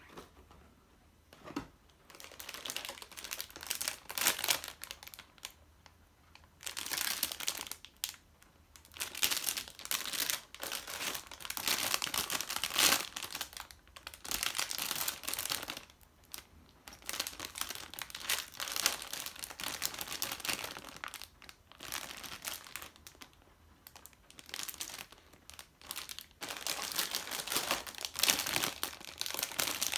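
Clear plastic bags around model-kit parts runners crinkling as they are handled and pulled out of the box. The crinkling comes in repeated bursts with short pauses.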